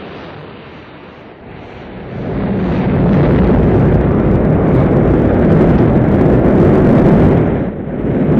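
Rocket engines at liftoff: a low rumble that swells about two seconds in into a loud, steady roar, dipping briefly near the end.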